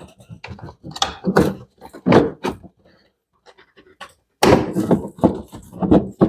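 Plastic cover being handled and fitted back into place, with irregular knocks and scrapes, in two busy spells with a short lull between.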